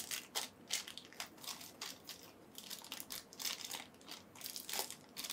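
Packaging crinkling and crackling as it is handled, a quick irregular run of small faint crackles.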